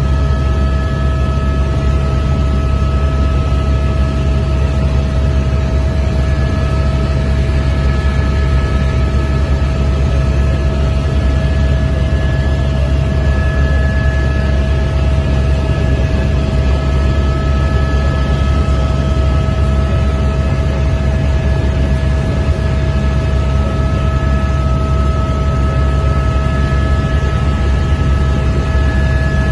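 Helicopter cabin noise in level flight: a loud, steady low drone from the rotor and engine, with a steady whine of several high tones over it.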